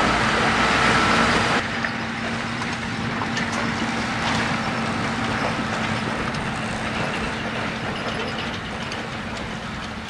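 Valtra S374 tractor's six-cylinder diesel engine running steadily under load as it pulls two tipper trailers, with the trailers rattling. The sound drops suddenly about a second and a half in, then slowly fades as the tractor moves away.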